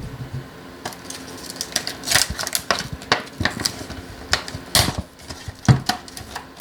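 Packaging of a set of magnetic parts trays being pulled and torn open by hand: irregular crackles and sharp clicks.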